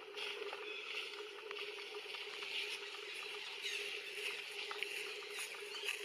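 Steady outdoor ambience: a constant low drone and an even high hiss, with faint scattered soft clicks.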